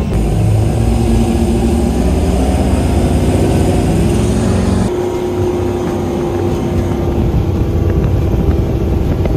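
Cigarette performance powerboat's engines running hard at speed, a loud steady drone with rushing wind and water. The sound changes abruptly about halfway through, as between two shots of the same run.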